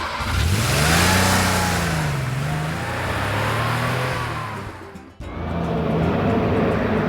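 Car engine sound effect revving, its pitch rising and falling in slow sweeps; about five seconds in it cuts off and a steadier engine sound takes over.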